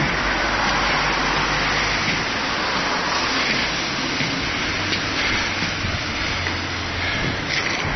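Steady rumble and hiss of passing motor traffic, with a low engine drone and a few faint knocks.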